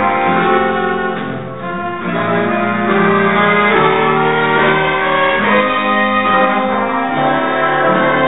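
Jazz band playing slow, long-held chords, with a brief dip in loudness about a second and a half in.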